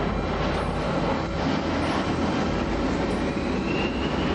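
Jet airliner engine noise: a steady rumble with a faint whine that rises in pitch near the end.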